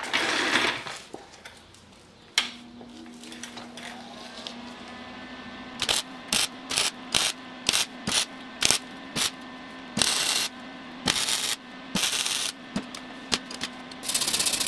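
A MIG wire-feed welder switched on with a click about two seconds in, its steady hum starting, then short crackling arc bursts in quick succession followed by longer half-second bursts, as thin sheet steel is stitch-welded in short runs. A short rustling noise comes at the very start.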